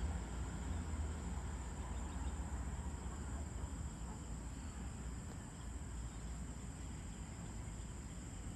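Evening insects giving a steady, high-pitched trill that does not let up, over a low, steady rumble.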